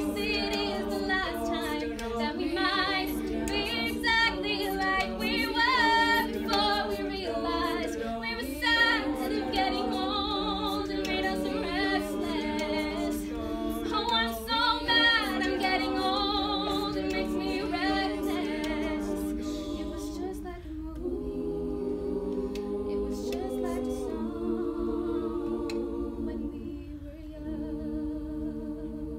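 Women's a cappella group singing in close harmony, several voice parts stacked without instruments. About two-thirds of the way through, the texture thins to softer held chords, and the song closes on a final chord near the end.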